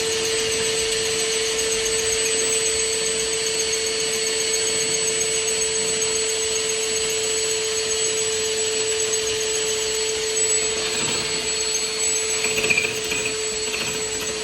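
Electric drill running steadily at constant speed, boring into a brick and stone wall, with an unbroken motor whine.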